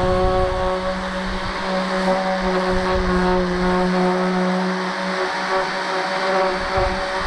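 Corded electric sander running steadily: a constant motor hum with the hiss of sanding over it.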